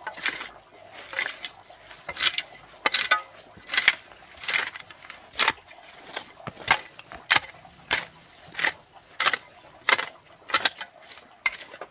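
Metal hoe blade chopping into and scraping across soil in a steady rhythm, a sharp stroke about every half second to second.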